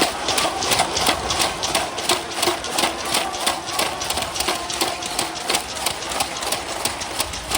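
A fast, even run of sharp knocks, about three or four a second, in a large hall.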